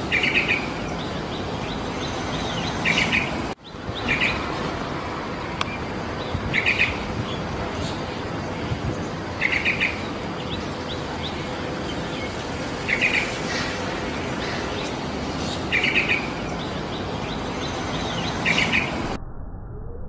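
Yellow-vented bulbul (trucukan) giving short chirping phrases every few seconds, eight in all, over a steady background hiss. The sound drops out for a moment just before four seconds in and turns muffled near the end.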